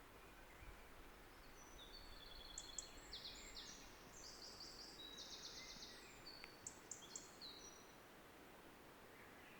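A small songbird singing a quick, varied, high-pitched song of trills and short whistled notes, heard faintly over a steady hiss, starting a second or two in and stopping near the end.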